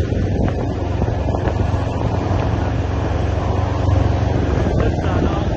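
Vehicle engine and road noise at a steady cruise, with wind rushing over the microphone.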